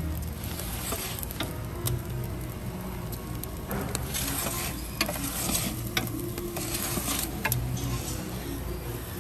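Logs burning in a wood-fired brick pizza oven: a steady hiss with scattered sharp crackles and pops.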